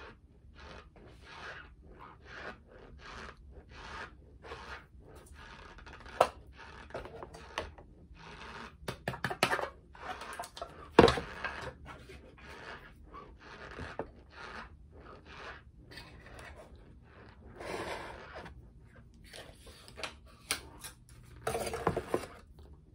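Dry cornstarch being scooped with a spoon and chewed: repeated short squeaky, crunchy strokes about every half second to second, with scraping against its container. A sharp clack about eleven seconds in is the loudest sound.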